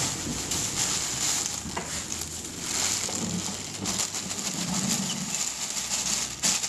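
Stone-ground flour being emptied from its packet into a bucket of water: a soft, steady pouring hiss with the rustle and crackle of the packet.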